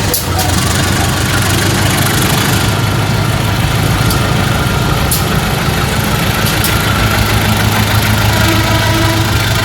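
Diesel engine of a GE diesel-electric locomotive running steadily at a low, idling-like pace with a deep hum, and a few faint sharp ticks.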